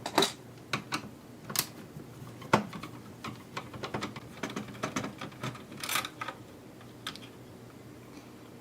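Irregular light clicks and taps of a screwdriver and small screws against a PS4 console's casing as screws are taken out, a few sharper knocks among them, thinning out near the end.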